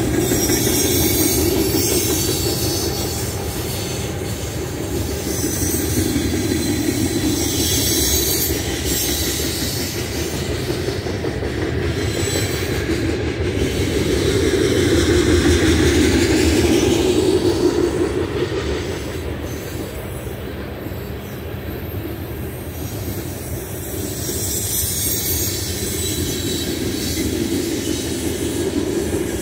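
Freight cars of a long Union Pacific manifest train rolling past on steel wheels and rail: a steady rumble and rattle that swells and fades as the cars go by.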